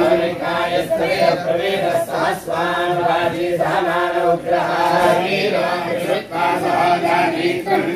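A group of male voices chanting Vedic mantras together in a steady sing-song recitation.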